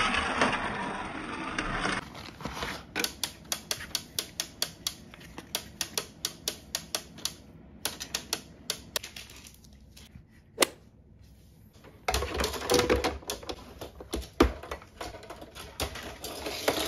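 Plastic toy car playset: a toy car rolling down a plastic ramp, then a long run of even ratcheting clicks, about three or four a second, from the hand-cranked elevator lifting a car up the plastic tower. A sharp knock about two-thirds of the way through, then more rolling and rattling on the plastic track near the end.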